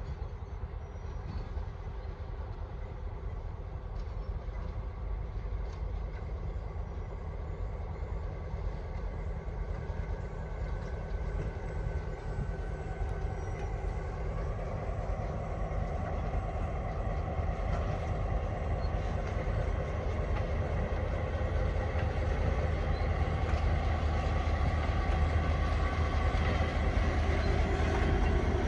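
Diesel locomotive of a train running with a steady low engine hum, growing steadily louder as it draws closer.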